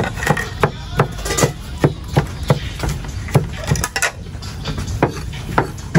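Rhythmic chopping during food preparation: sharp knocks about three a second, pausing briefly about four seconds in before starting again.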